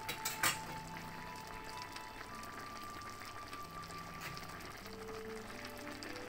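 Slow background music of long held notes, stepping upward near the end, over the bubbling of a pot of coconut-milk fish soup simmering. A couple of light clicks in the first half-second.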